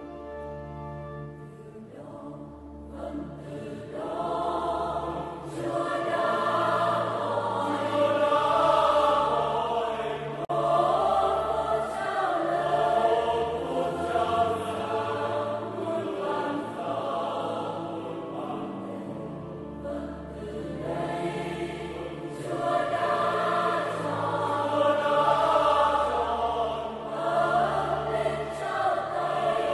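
Slow choral music: a choir singing sustained chords over a low held accompaniment, growing louder about four seconds in.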